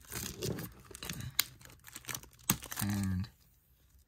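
Plastic Blu-ray case and its wrapping being handled: a quick run of small plastic clicks and crinkling, which stops about two and a half seconds in.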